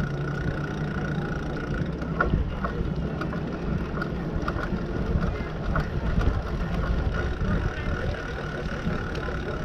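Rumble and wind noise from riding a bicycle along a paved path, with scattered light clicks and a faint steady high tone.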